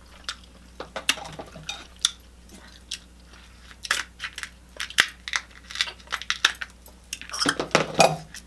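King crab leg shells cracking and snapping during close-up eating, with chewing in between; many separate sharp cracks, a dense run of them near the end the loudest.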